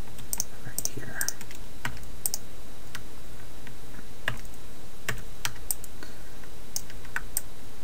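Computer keyboard keys and buttons clicking, a dozen or so irregular taps over a steady low hum.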